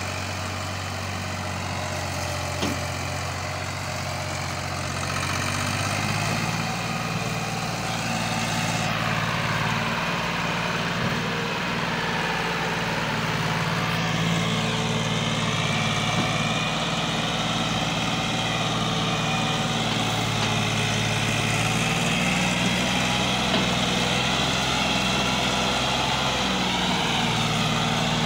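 Massey Ferguson 260 tractor's diesel engine running hard under load as it strains to pull a heavily loaded sugarcane trolley, its note shifting up and down several times.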